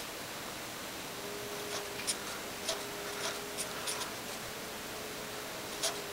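Felt-tip pen writing on graph paper: short scratchy strokes at irregular intervals, a few a second, over a steady hiss.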